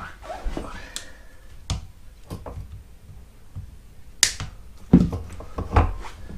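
Sharp clicks and knocks of metal parts being handled as an electric brake is worked off a mobility scooter's transaxle. The loudest click comes about four seconds in.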